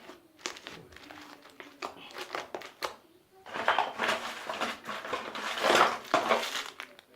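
Close crinkling and crackling of confetti being handled, quieter at first and becoming a dense, loud crackle from about halfway through.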